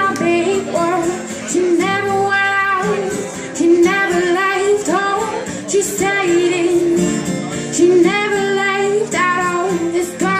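A woman singing a slow pop song live, with guitar accompaniment.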